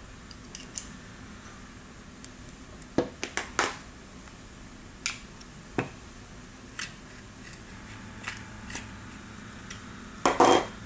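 Small metal clicks and clinks of a steel rod and hex key working against the metal housing of a Lindova XT tool during assembly: a handful of scattered taps, and a louder quick clatter near the end.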